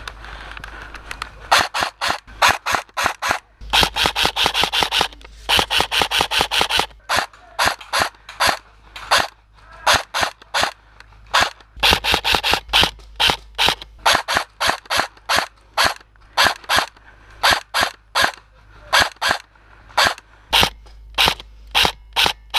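Airsoft rifle firing at close range: strings of sharp shots, with two denser rapid runs in the first seven seconds, then single shots at about two to three a second.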